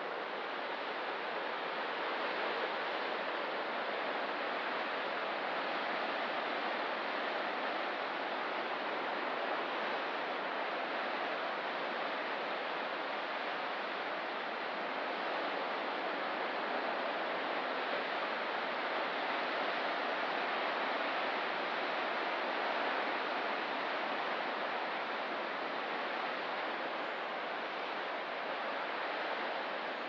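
Ocean surf heard as a steady, even wash of noise, with no single wave break standing out.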